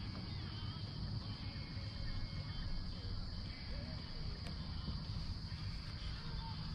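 Outdoor river-bank ambience: a steady, high insect drone, over a low rumble of wind on the microphone.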